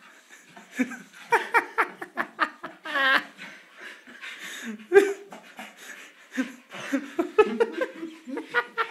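A small dog making many short vocal noises as it wriggles and rolls on its back on carpet, mixed with a person laughing.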